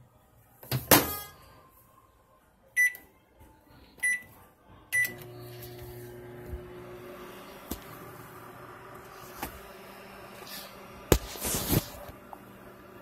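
Microwave oven door shut with a clack, then three keypad beeps, and the MCD11E3W microwave starts running with a steady hum. A couple of light clicks, and a loud clatter near the end.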